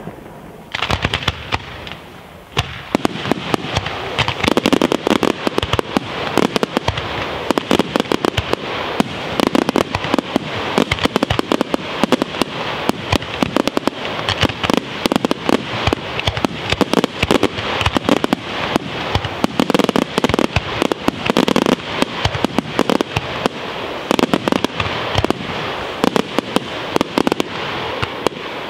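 Aerial fireworks display: a dense, continuous barrage of bangs and crackling reports, many a second. It starts suddenly about a second in.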